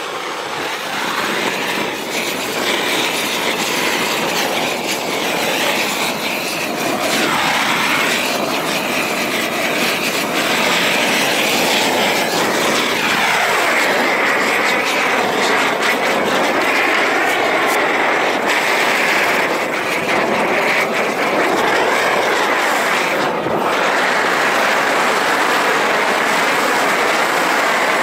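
Gas roofing torch burning steadily, a loud rushing flame noise that builds over the first couple of seconds, as it heats torch-on bitumen felt to melt it down.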